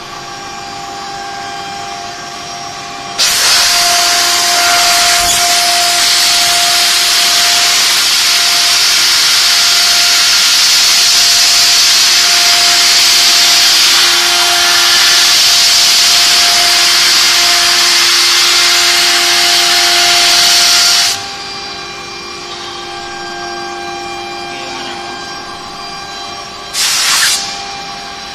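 CNC router running on aluminium composite panel, its spindle giving a steady whine. About three seconds in, a loud, even hissing noise starts over it and stops abruptly some eighteen seconds later, with one short burst of the same hiss near the end.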